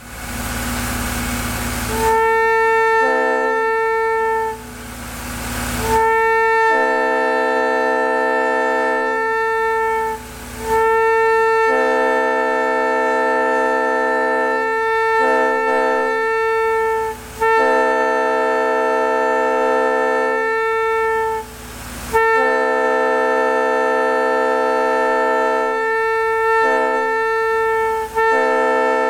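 Prime 920 third-generation air horn blown in a series of long blasts, several seconds each, with brief breaks between them, sounding several notes at once. It opens with about two seconds of rushing air before the horn sounds.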